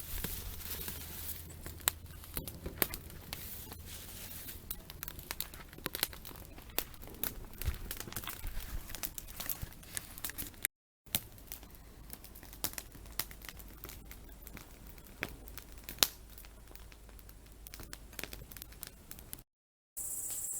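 Wood campfire crackling with frequent irregular sharp snaps and pops, as aspen logs burn along with dry leaves and tomato tops laid on. The sound cuts out briefly twice.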